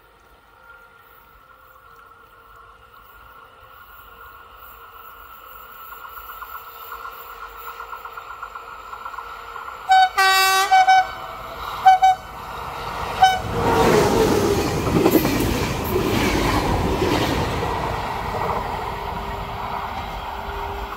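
CP class 2600 electric locomotive hauling a passenger train sounds its horn once long and twice short as a greeting. It then passes close with loud rushing and wheel rumble, which slowly dies away as the train moves off.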